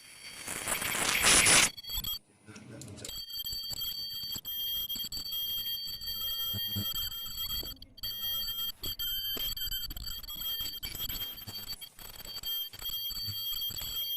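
A loud burst of rushing noise lasting about a second and a half, then the steady high-pitched whine of a 20 kHz ultrasonic welding horn running, with several piercing tones stacked together and brief cut-outs a few times.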